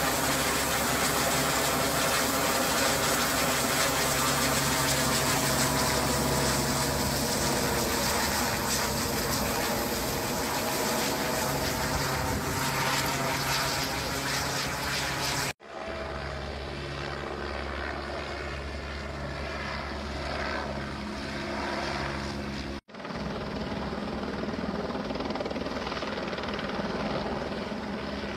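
Helicopter flying overhead while carrying sling-loaded linemen on a long line: a steady drone of rotor and engine with a low, even hum. It cuts off abruptly about halfway through and again later, coming back slightly quieter each time.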